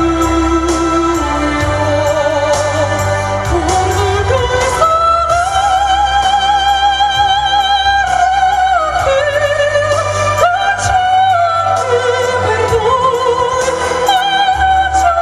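A woman singing into a microphone with musical accompaniment, holding long notes with strong vibrato; the melody climbs about four seconds in to a high sustained passage, dips, rises again and comes back down near the end.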